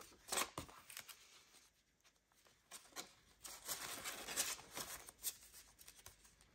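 Paper money and cash envelopes rustling as they are handled: a couple of short rustles near the start, then a longer stretch of rustling from about three seconds in to about five and a half.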